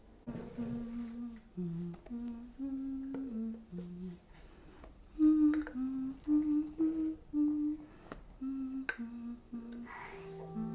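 A voice humming a slow tune in a small room, held notes stepping up and down, with a few light clicks from handling things.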